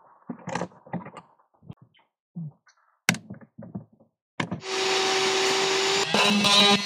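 Light knocks and clicks of hard plastic being handled, then a small cordless power tool runs at a steady speed for about a second and a half, cutting out plastic flanges inside a plastic toolbox lid.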